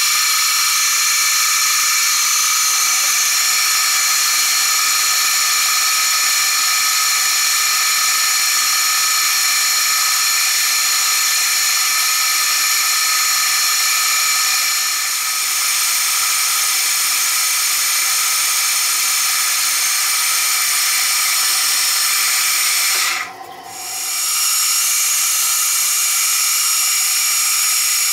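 Vertical milling machine's end mill cutting a pocket into a metal plate: a loud, steady high-pitched cutting whine over a hiss. It drops away briefly about 23 seconds in, then comes back.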